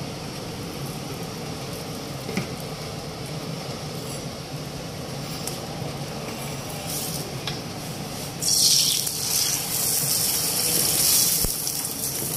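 Ghee frying under an aloo paratha on a hot iron tawa. For the first eight seconds there is a steady low hum with a few light clicks. About eight and a half seconds in, a loud sizzle starts as the paratha is turned with tongs onto the ghee, and it keeps going.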